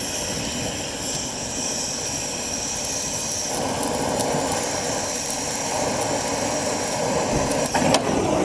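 Oxyacetylene torch flame hissing steadily while it heats a seized steel lawnmower blade adapter. The rushing sound grows fuller about a third of the way in, and a couple of faint clicks come near the end.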